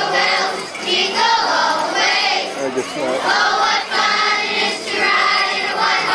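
A crowd of voices singing together, with talking mixed in.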